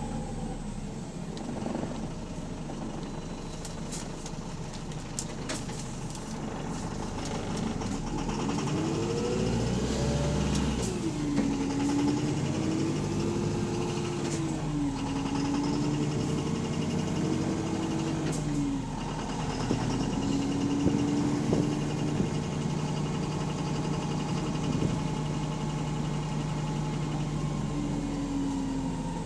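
Bus engine running, with a whine that rises and falls in pitch about nine to eleven seconds in and then wavers more gently. The engine is one with a loud rod knock.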